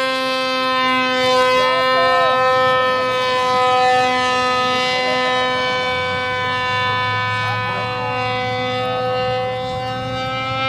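Electric motor and propeller of an RC paper-airplane model in flight, giving a steady high whine with many overtones that drifts only slightly in pitch.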